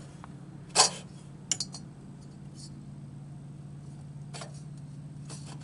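A tight rubber V-belt being worked by hand onto the cart's metal pulleys: a few short scrapes of belt on pulley and light metallic clinks, scattered through, over a steady low hum.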